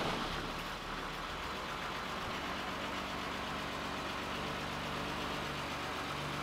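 Mercedes-Benz 300D diesel engine idling steadily, freshly started, heard from inside the truck's cab.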